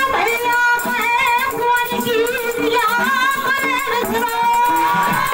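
Man singing a Bundelkhandi got folk song into a microphone, his voice wavering and ornamented, over a steady held accompanying note.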